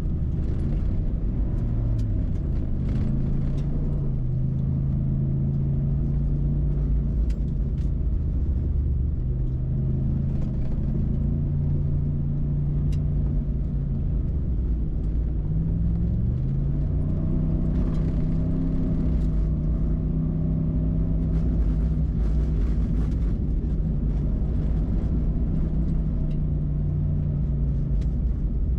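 A 2014 Ford SVT Raptor's 6.2-litre V8 running while the truck drives along, over a steady low road rumble. The engine note rises around two seconds in and again about sixteen seconds in as the truck picks up speed.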